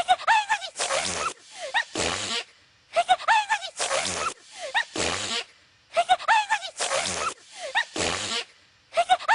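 Voice-acted cartoon sneeze from a female cartoon unicorn: high, squeaky gasping build-up followed by a noisy burst. It repeats on a loop about every three seconds, three times here.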